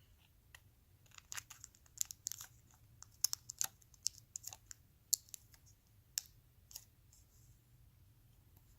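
Faint, irregular light clicks and crinkles of hands handling a small plastic ribbon-cable connector and the flat cable, scattered over the first seven seconds.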